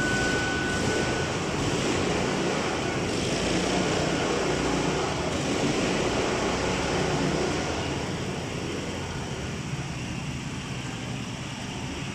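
Drift carts running on an indoor track: a steady mechanical drone that eases off a little over the last few seconds.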